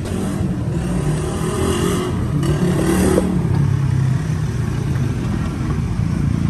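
Motorcycle engine running steadily, swelling briefly about two to three seconds in.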